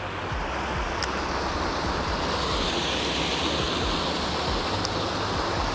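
Small waterfall spilling over rocks into a pond: a steady rush of falling water.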